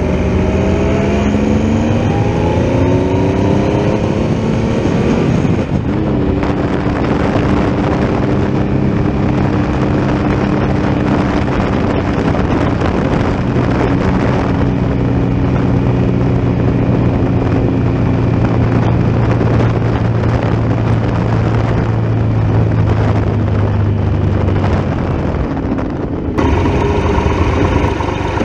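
Triumph Tiger Explorer XRx's 1215 cc three-cylinder engine accelerating with rising pitch over the first few seconds, then cruising at a steady pitch with wind and road rush. The sound changes abruptly near the end.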